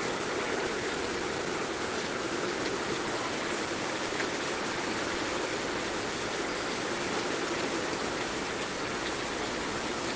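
Heavy rain falling steadily, a dense constant hiss with faint scattered drop ticks.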